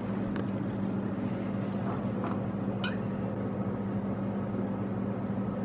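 Steady low mechanical hum in a kitchen, with a faint short rising squeak about three seconds in.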